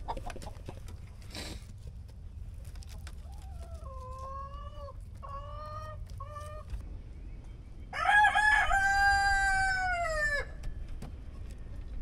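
Chickens leaving the coop: a few short pitched calls, then about eight seconds in a barred rooster crows once, a loud cock-a-doodle-doo lasting about two and a half seconds.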